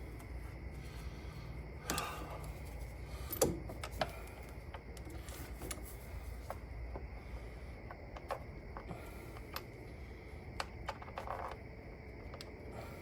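Scattered light clicks and clinks of hand tools and metal parts being handled during engine work, with a sharper clink about three and a half seconds in, over a low steady hum.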